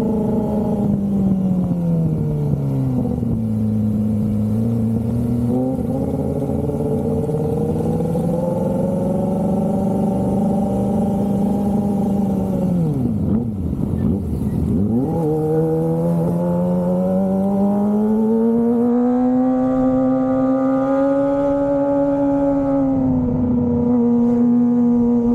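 Kawasaki Ninja ZX-25R's 250 cc inline-four engine running at high revs, its pitch sagging and rising again. About halfway the revs drop sharply almost to idle, then climb back and hold high to the end.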